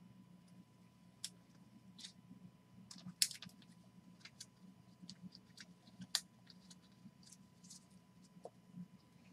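Faint clicks and taps of hockey cards in plastic sleeves and rigid top loaders being handled and set down on a table, the sharpest about three seconds in and again about six seconds in, over a faint steady hum.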